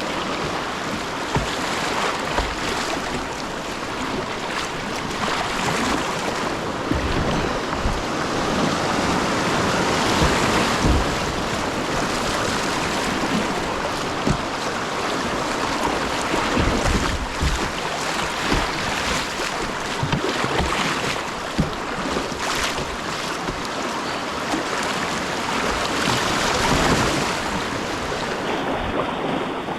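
Whitewater river rapids rushing loudly and steadily close to a kayak, with irregular low knocks and splashes mixed in.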